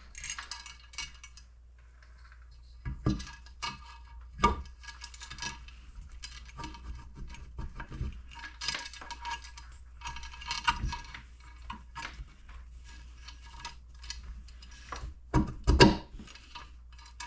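Metal engine parts being handled and set down: scattered light clinks and taps, with a few sharper knocks, the loudest a pair near the end.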